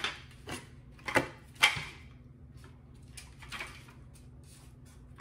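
Hard plastic parts of a Kenner Ecto-1 toy car being handled: a few sharp clicks and knocks, the two loudest close together about a second or so in, then fainter ones later.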